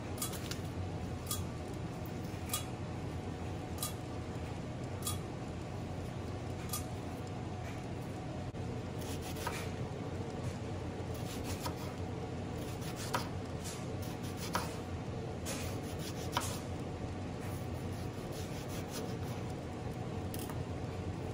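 Kitchen knife slicing through bitter melon and striking a plastic cutting board, a sharp click with each cut: evenly spaced at first, then in quicker, irregular runs. A steady low hum sits underneath.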